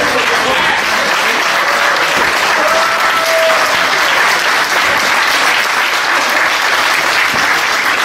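Audience applauding steadily, a dense clapping that holds at one level throughout.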